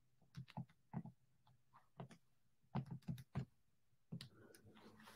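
Faint, single key clicks, about ten spaced irregularly, as a multiplication is keyed in to get its answer.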